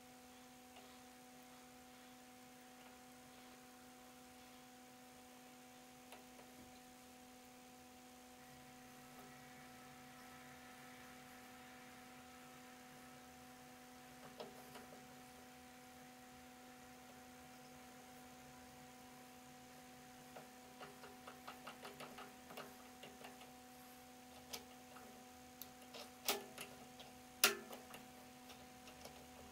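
Steady faint electrical hum, joined in the last third by a run of light metallic ticks and clicks as an M2 tap is turned by hand into aluminium with a small tap wrench and tap follower.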